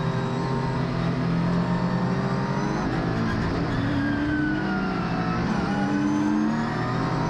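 Onboard sound of a Ligier racing car's engine at speed, heard from inside the cockpit. The engine note falls and then rises again partway through.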